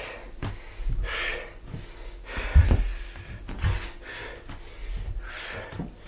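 A man breathing hard from exertion, a breath roughly every second, while bare feet thud on a wooden floor during step-back lunges; the loudest thud comes about halfway through.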